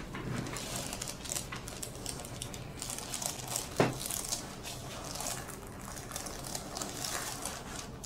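Paper headrest cover on a chiropractic table crinkling and rustling under the patient's head as it is turned from side to side by hand, with one sharp pop about four seconds in.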